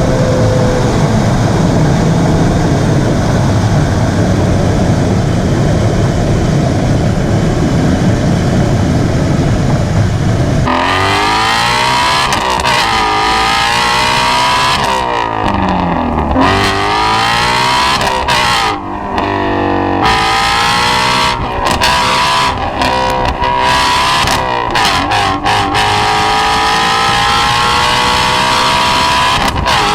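Ford Shelby GT350's 5.2-litre flat-plane-crank V8 run hard. A steady, loud rushing noise lasts about the first ten seconds. Then the engine revs, its pitch climbing and dropping several times with sudden breaks, and ends in a long steady rise.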